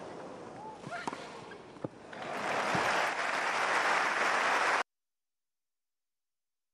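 Tennis balls struck with rackets in a rally on a grass court, a few sharp hits, then crowd applause that builds about two seconds in and cuts off abruptly about five seconds in.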